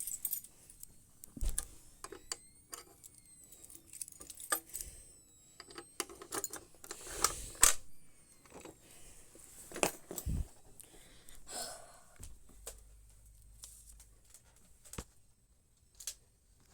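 A bunch of keys jangling and clicking as they are handled, with irregular sharp clicks and knocks, a few louder ones scattered through.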